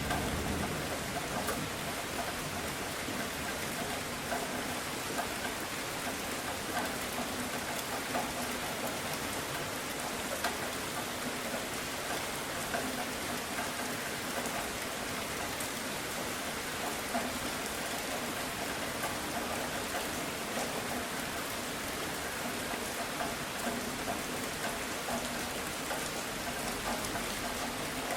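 Steady rain falling on a surface, with many small separate drop hits. The low rumble of a thunderclap dies away in the first second.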